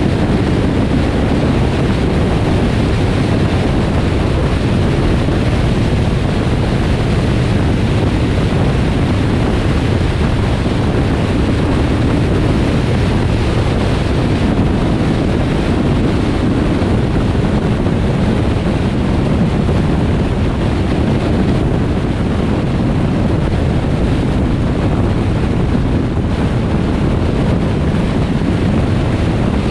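Steady road and wind noise of a vehicle driving on a highway: an even, low rumble of tyres and rushing air, unchanging throughout.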